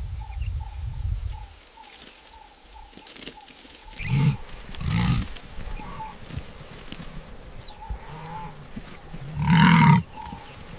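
A large animal gives three loud, deep calls, at about four and five seconds in and the loudest near the end, over a faint call repeated about three times a second.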